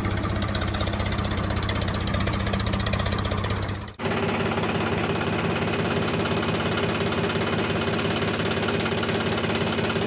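Diesel tractor engine running steadily with a fast, even knock. About four seconds in it cuts abruptly to another stretch of engine running at a slightly different note.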